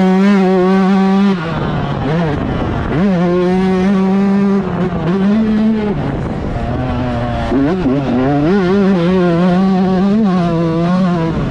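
125cc two-stroke motocross bike engine at racing revs, pitch climbing hard and then dropping off again and again as the throttle is rolled on and off through the gears and corners.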